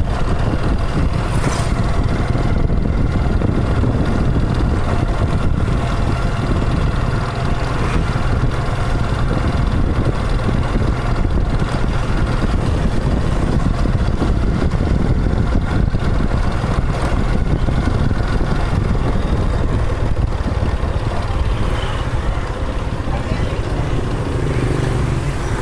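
Motorbike ridden along a road: steady engine running with heavy wind buffeting on the microphone.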